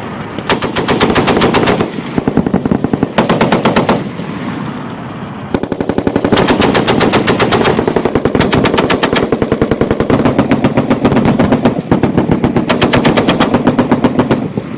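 Belt-fed machine-gun fire in repeated bursts of rapid shots: a burst about half a second in, shorter ones around two to four seconds, then a long run of fire lasting about six seconds from five and a half seconds in, and more bursts near the end.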